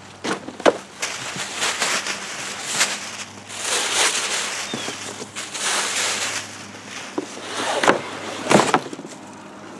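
Packing tissue paper crinkling and a fabric soft top rustling as they are pulled and lifted out of a cardboard box, with a few short sharp crackles of handling.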